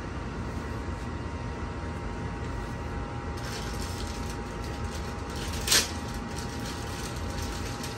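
Small plastic parts bags rustling and crinkling as they are picked up and handled, with one louder crinkle near six seconds in. Under it runs a steady low hum with a faint thin whine.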